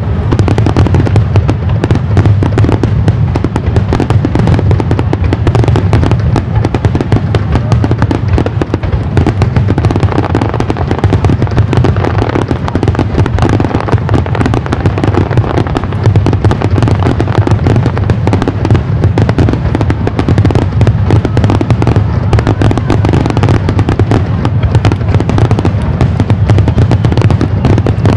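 Aerial fireworks going off in a rapid, continuous barrage, the booms and crackles overlapping without a break.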